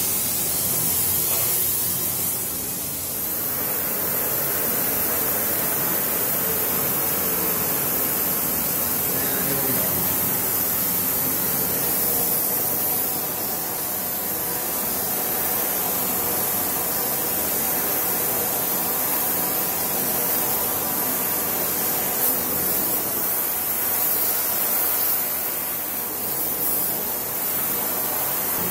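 Gas torch flame hissing steadily as it heats a metal bar.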